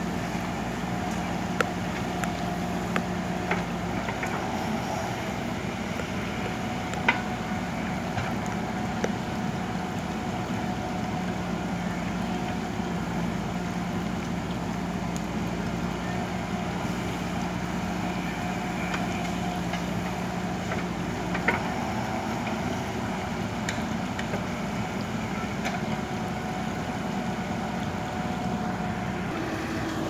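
JCB backhoe loader's diesel engine running steadily as it works its front loader bucket, with a higher whine that comes and goes and a few sharp knocks.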